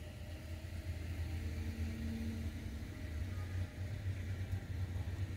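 A steady low hum under a faint hiss, with a faint short tone about two seconds in; no distinct handling or tool sounds stand out.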